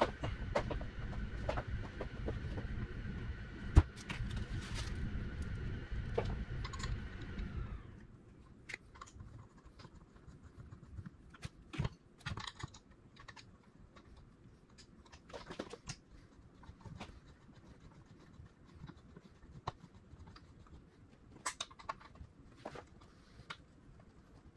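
Scattered light clicks and metal taps as a racing seat's steel mounting bracket is handled and fitted by hand. For about the first eight seconds a steady hum with a held tone runs under the clicks, then stops abruptly, its pitch sagging as it cuts off.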